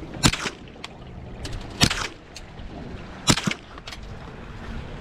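Three shotgun shots about a second and a half apart, fired at nutria, each with a short echo and a few lighter clicks after it. Under them is the steady low rumble of the boat's mud motor running.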